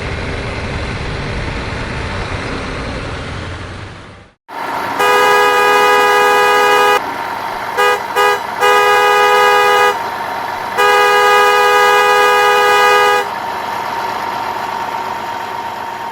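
Vehicle engine noise with a strong low rumble that cuts out about four seconds in. Then a loud truck-style horn honks: one long blast, three quick toots, and two more long blasts, with steady engine noise underneath.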